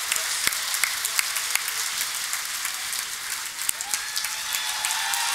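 Audience and band applauding: a dense, steady patter of hand clapping.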